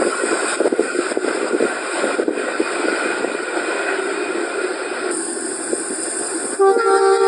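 Train running on the rails with a steady rumble and clatter. About six and a half seconds in, a locomotive's chord horn starts and holds, several steady tones at once.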